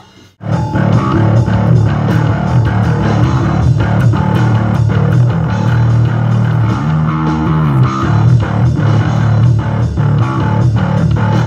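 Electric guitar and bass guitar playing a loud rock riff together. It starts about half a second in, has a few bent notes near the middle, and cuts off abruptly at the end.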